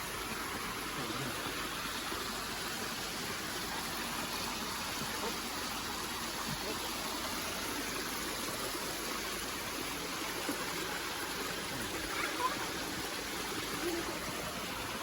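Steady rushing of a mountain waterfall and stream.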